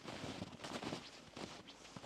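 Footsteps of a person walking at a steady pace, one step about every two-thirds of a second.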